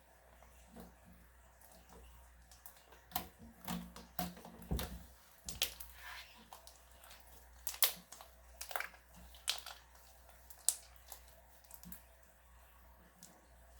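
Slime being worked by hand, giving irregular sticky clicks and pops.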